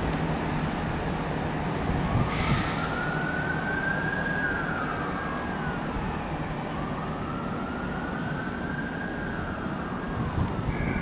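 A distant emergency-vehicle siren wailing in two slow rise-and-fall sweeps over steady station and traffic rumble, with a brief hiss about two seconds in.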